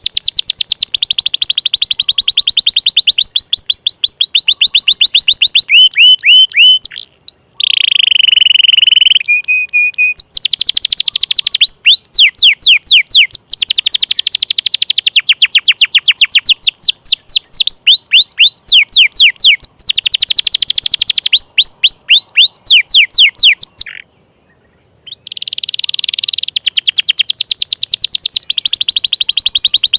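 Domestic canary singing: long runs of fast trills made of rapidly repeated high notes, changing from one trill type to another. A held whistling note comes about eight seconds in, and the song breaks off for about a second later on before the trills resume.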